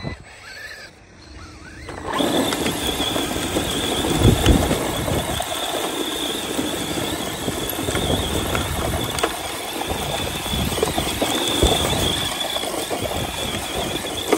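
ARRMA Mojave 4S RC short-course truck's brushless electric motor whining high and steady, with tyres spinning and churning sand as it drifts. The sound comes in suddenly about two seconds in.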